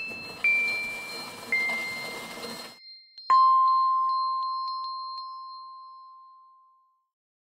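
Intro sound logo: chime notes stepping down in pitch over a soft shimmering hiss, then a single lower bell-like ding a little over three seconds in that rings out and slowly fades.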